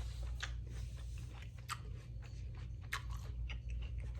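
A person chewing food close to the microphone, with scattered short wet smacks and crunches over a steady low hum.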